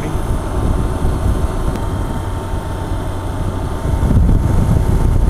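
Motorcycle riding at highway speed: steady engine, tyre and wind noise, getting a little louder about four seconds in.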